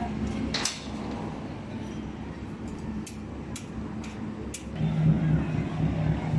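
Construction-site noise: a handful of sharp knocks, like hammer or metal strikes, over a steady low machinery rumble, with a louder pulsing machine hum coming in about two-thirds of the way through.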